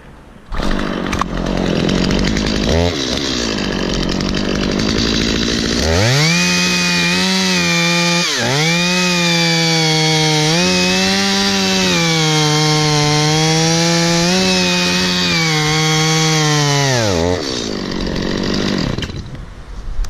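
Stihl MS 250 two-stroke chainsaw cutting through a coconut palm trunk. It comes in at a low, rough running about half a second in, goes to full throttle for about eleven seconds with one brief dip, then drops back and dies away near the end.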